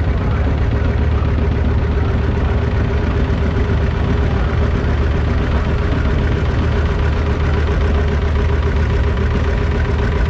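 Vintage John Deere two-cylinder tractors running at slow parade speed as they pass close by, a steady low engine rumble.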